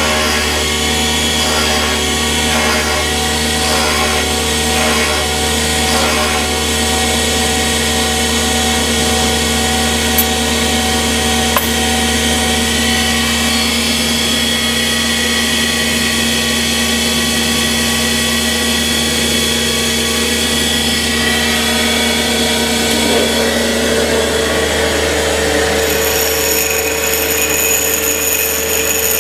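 Soviet valve-grinding machine running, its electric motor and grinding stone giving a steady hum with several constant tones. A higher whine joins near the end.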